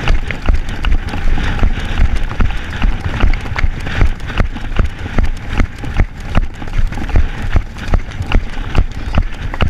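Hoofbeats of a ridden palomino mare and a pony just ahead of her, moving along a grass track. A steady run of knocks sounds over low wind rumble on the rider's helmet camera.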